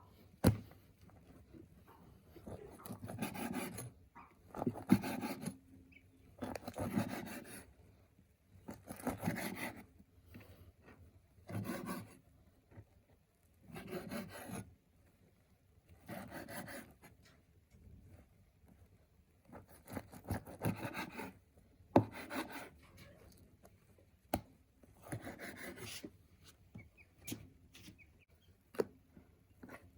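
Repeated rasping, rubbing scrapes, one burst about every two seconds, with a few sharp clicks in between.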